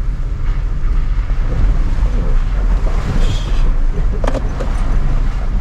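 Toyota Tacoma pickup driving slowly over a wet, rutted dirt road, heard from inside the cab: a steady low rumble of engine and tyres, with a few sharp knocks a little after four seconds in.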